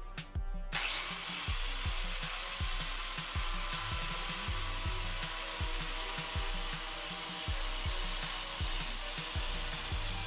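Angle grinder spinning up about a second in, its whine rising quickly to a steady high pitch, then its cutting disc grinding into the glass and metal frame at the top edge of an iPhone X held in a vise.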